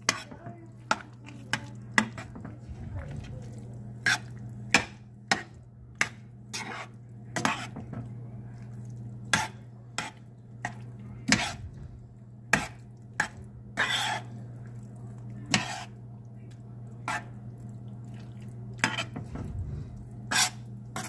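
A metal spoon stirring thick meat and tomato sauce in a stainless steel pan, with irregular clinks and scrapes of metal on the pan's sides and bottom. A steady low hum runs underneath.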